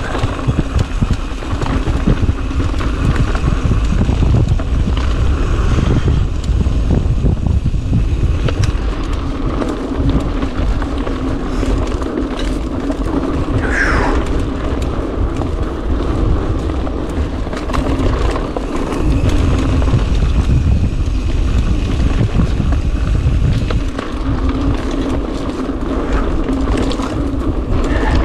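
Rockrider AM 100S mountain bike riding down a rough trail: steady rushing wind on the microphone with continual rattles and knocks from the bike over the ground, and a brief squeal about fourteen seconds in.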